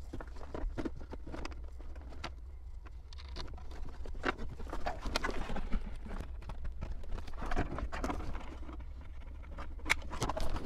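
Irregular plastic clicks, knocks and rustling of wiring as harness connectors are plugged into a double-DIN car radio and the unit is pushed into the dashboard, over a low steady hum.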